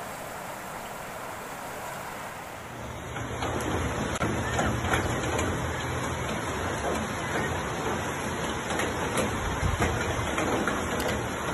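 Muddy floodwater rushing along a street, a steady noisy rush that grows louder and fuller about three seconds in.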